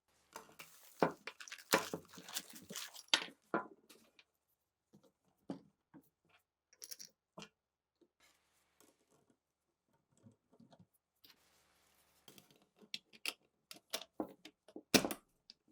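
Irregular clicks and clacks of metal parts of an MG-34 machine gun being handled, with a busy run at the start, sparse taps in the middle, and a sharp knock near the end.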